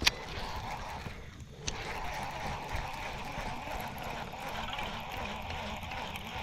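Water lapping and gurgling around a fishing kayak, a steady low wash, with a sharp click at the start and another a little under two seconds in.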